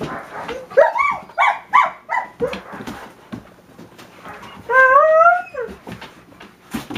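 A dog yipping and whining in play during a tug of war over a sock: about four short high yelps a second or so in, then one longer whine that rises slightly in pitch around five seconds, with clicks and scuffles throughout.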